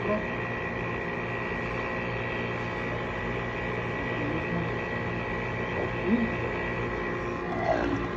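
Colloid mill running steadily while grinding lupin beans (chochos) and water into a smooth sauce: its electric motor gives a constant hum with a thin high whine above it.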